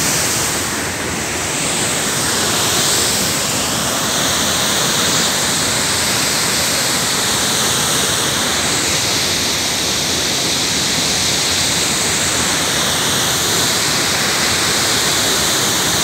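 Waterfall pouring into its rock plunge pool, a steady, even rush of water.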